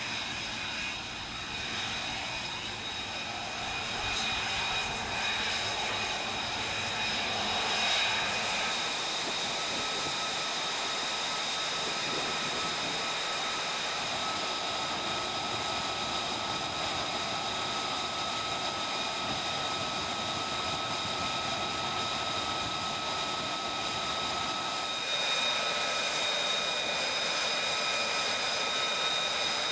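F-35B Lightning II's jet engine running steadily on the flight deck: a rushing roar with a high, steady whine over it, growing a little louder near the end.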